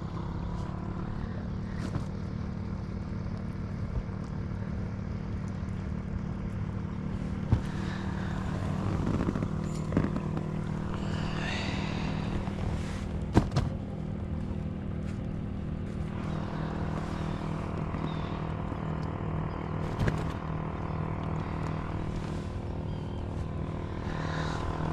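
A motorboat engine runs steadily on the water, a continuous drone, with a few brief knocks now and then.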